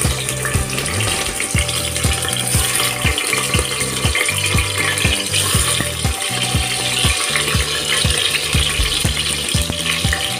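Hot oil sizzling as stuffed bitter gourds are laid one by one into a pressure cooker, under background music with a steady beat.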